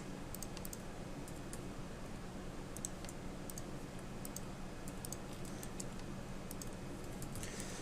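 Irregular, scattered clicks of a computer mouse and keyboard over a steady low hum.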